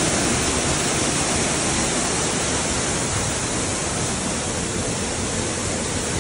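A waterfall's falling water rushing loud and steady, as an even noise with no rhythm or pitch in it.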